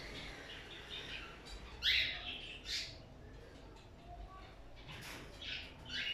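Caged cockatiels and budgies chirping: scattered short rising calls, the loudest a sharp chirp about two seconds in, with another a second later and a few more near the end.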